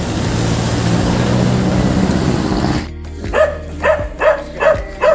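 Steady outdoor noise with car engines running. After a sudden cut about three seconds in, a dog barks in an even rhythm, about two or three barks a second.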